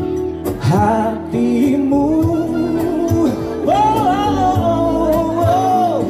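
A male singer performs a Malay-language song over amplified instrumental backing with drums. He holds one long note, then rises to a higher long note about halfway through.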